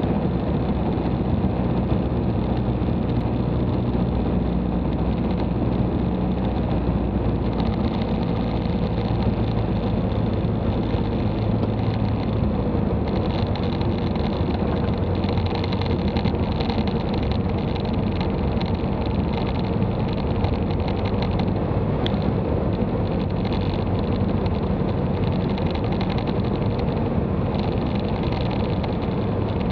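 Piper Cherokee PA-28's engine and propeller running steadily at climb power, heard inside the cockpit. The engine's tone changes slightly about seven seconds in.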